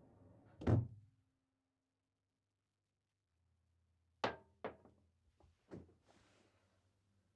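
Knocks and thumps: one heavy thump, then after a few seconds of quiet, four sharp knocks in quick succession, the last followed by a short hiss.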